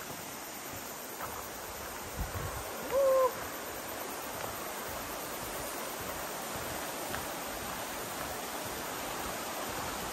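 Steady rush of a river or stream, with one short hoot about three seconds in.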